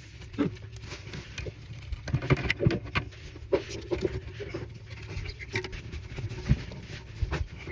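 Irregular taps, clicks and scrapes of hand work on a toilet flange, at uneven spacing, over a steady low hum.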